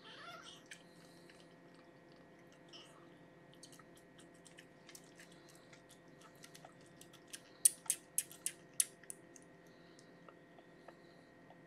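A week-old kitten suckling from a syringe nipple: soft clicking sucks that come scattered at first, then a quick run of about five sharper, louder clicks about two-thirds of the way through.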